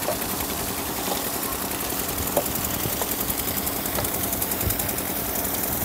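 An engine running steadily with a fast, even knocking beat.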